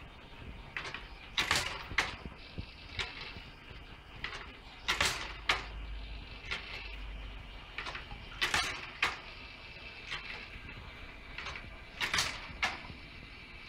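Scratchbuilt Newcomen atmospheric steam engine running: four loud, brief rushing bursts about every three and a half seconds, one each working cycle, with lighter clicks and knocks from its valves and linkage between.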